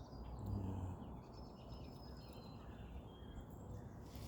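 Faint outdoor background: a steady low rumble with thin, faint high-pitched chirps scattered through it, and a brief low swell about half a second in.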